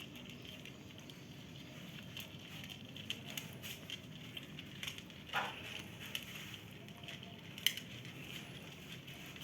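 Cats eating, with small scattered clicks and crackles of chewing and lapping at food. A brief high sound falls in pitch about halfway through.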